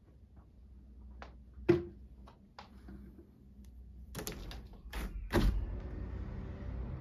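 A window being opened behind a sheer curtain: light clicks and knocks with one sharp knock about two seconds in, then three short clattering strokes of the sash and handle. Once it opens, a steady hiss of street traffic comes in from outside.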